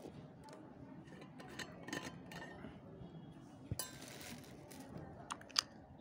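Stainless-steel vacuum flask and its plastic cup lid being handled: scattered light clinks and taps, with a brief rustle about four seconds in.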